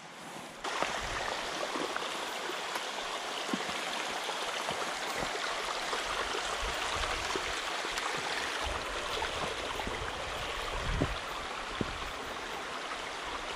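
Mountain stream water rushing steadily, growing suddenly louder under a second in, with a few scattered knocks.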